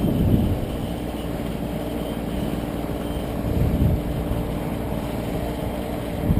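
Gusty wind buffeting the microphone: a steady low rumble with stronger gusts at the start and about four seconds in, over the faint steady hum of a quadcopter drone's propellers.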